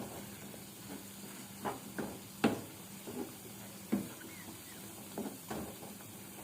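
A stirring utensil knocking and scraping in a pan of thick potato halwa: about seven irregular soft knocks, the sharpest about two and a half seconds in.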